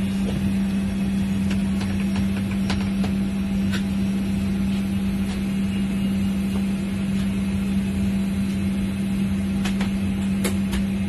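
Steady machinery hum on an airport apron, dominated by one strong low steady tone, with a few faint clicks and knocks.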